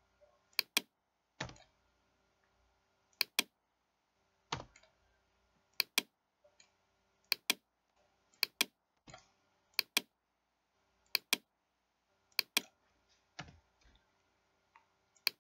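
Computer mouse clicking: about a dozen sharp clicks a second or so apart, most in quick pairs like double-clicks, with a few single clicks between them.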